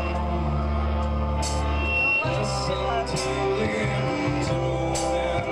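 Live rock band playing electric guitars, bass and drums, with repeated cymbal strikes; the bass moves to a new note about two seconds in.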